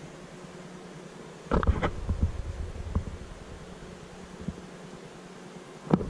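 Steady low electrical or ventilation hum of a room, with a brief low rumble and rustle of handling noise about one and a half seconds in and again near the end.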